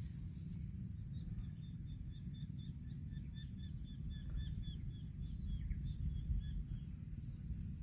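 Rural outdoor ambience: insects buzz steadily and a bird repeats short chirps, about three a second, over a steady low rumbling noise. No cow moo is heard.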